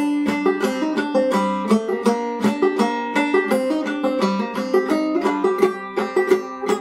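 Clawhammer banjo playing an old-time tune in C minor: a 1903 Fairbanks Whyte Laydie #2 open-back banjo tuned in Double C (gCGCD), frailed in a brisk, even run of plucked notes.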